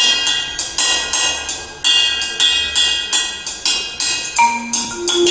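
A percussion ensemble playing: a run of sharp, ringing cymbal-and-drum hits, joined about four seconds in by held notes on mallet instruments (marimba and vibraphone).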